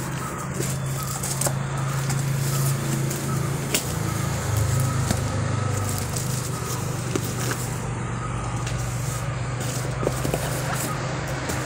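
Cardboard shipping box being slit open with a knife and its flaps pulled back: scraping, crackling and tearing of cardboard and packing tape, with scattered clicks. A steady low hum runs underneath.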